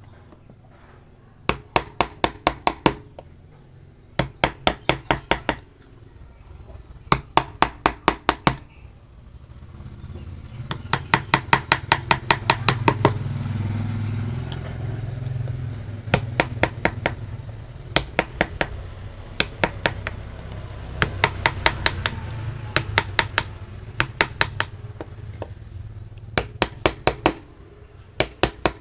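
Mallet striking a carving chisel in quick runs of about six to eight sharp taps, roughly five a second, with short pauses between runs as the chisel cuts into wood. A low rumble swells up and fades in the middle.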